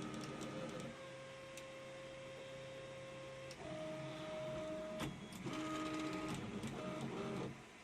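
3D printer's stepper motors running with a steady whine that jumps to a new pitch every few seconds as the moves change, with a couple of sharp clicks, then stopping abruptly near the end.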